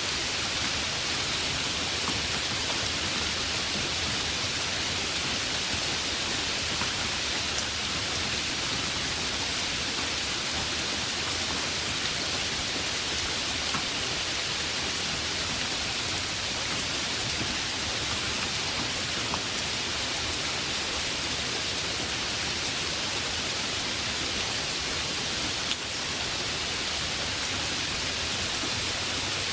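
Heavy rain falling steadily, a dense even hiss of drops with scattered individual drop ticks.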